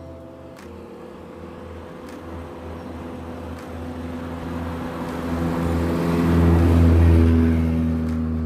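A car passing on the road: engine and tyre noise grow louder, peak about seven seconds in, then fade as it goes by.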